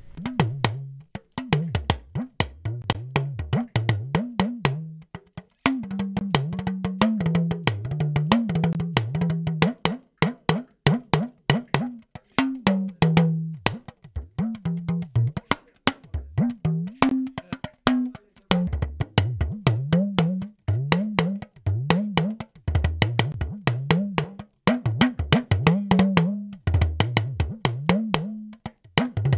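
Talking drum recording played back, a fast run of struck strokes whose low pitch bends up and down between hits, with short breaks every few seconds. It was recorded with an AKG C3000 condenser microphone and run through a compressor plugin.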